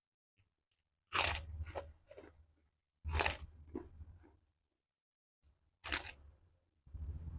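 Close-up eating sounds: four crunchy bites a couple of seconds apart, each followed by a moment of chewing.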